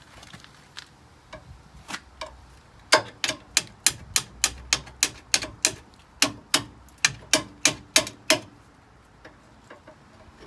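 Sharp metallic clicks from a tool working the threads of the coil spring compressors, a few scattered ones and then a steady run of about three a second for some five seconds.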